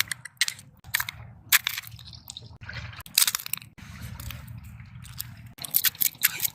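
Irregular crunching and scraping of shells and gravel, as small shellfish are scooped up on the shore, over a steady low rumble.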